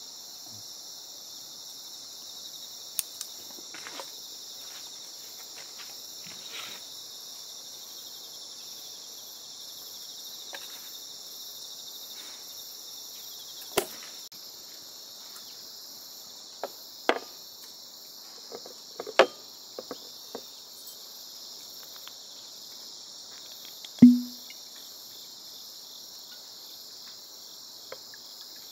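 A steady chorus of insects chirring, crickets among them. Scattered light clicks and taps of tableware sound over it, and one sharp knock with a short low ring, about three-quarters of the way through, is the loudest sound.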